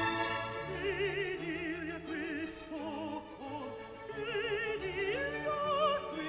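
A high operatic voice sings an aria with wide vibrato on long held notes, over orchestral accompaniment.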